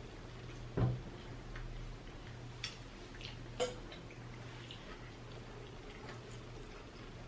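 Close-miked mouth sounds of eating: scattered wet smacking clicks, with a soft thump about a second in and two sharper clicks a little later, over a steady low hum.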